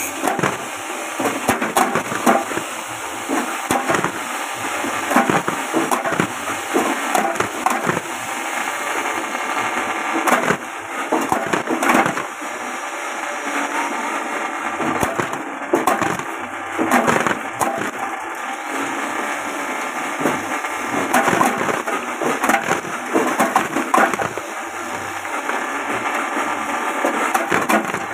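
JG 25 multifunction chopper, driven by an electric motor and belt, running while cassava tubers are fed into it. The blades chop the tubers with many sharp, irregular cracks over the steady noise of the machine.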